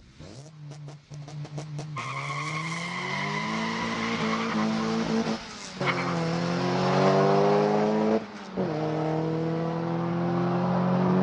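Car engine accelerating hard through the gears: a rattle of quick clicks at the start, then the engine note climbing in pitch, dropping twice at the gear changes, and climbing again.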